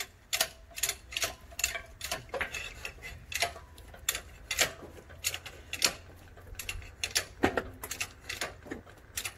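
A run of sharp, irregular clicks and light clinks, about one or two a second, some with a brief ring.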